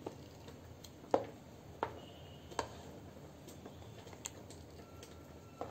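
A spoon stirring thin rice-flour batter in a ceramic bowl, knocking against the bowl in a handful of short, irregular clinks about a second apart.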